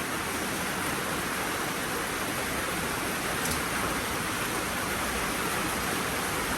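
Heavy rain falling steadily, an even hiss of downpour during a storm.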